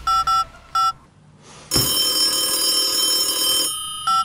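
Phone keypad dialing tones: three short two-note beeps in the first second. Then a telephone rings for about two seconds, and one more keypad beep comes near the end.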